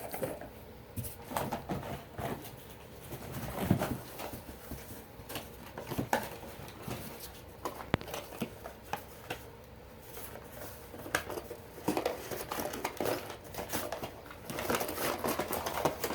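Handling and rummaging: scattered knocks and clicks of hard fire alarm devices being moved and set down, with rustling and crinkling of packing, busier near the end.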